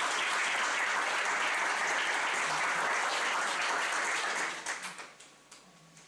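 A small audience applauding, a steady patter of many hands that dies away about four and a half seconds in, with a few last scattered claps.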